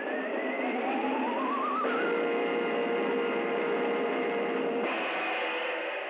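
Opening title music of an early-1930s cartoon soundtrack. Two rising glides lead into a held chord about two seconds in, and the chord changes about five seconds in. The sound is thin, with no highs.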